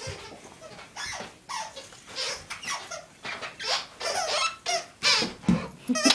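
Squeaky dog toy squeaking over and over as a dog chews it. The squeaks come louder and closer together toward the end.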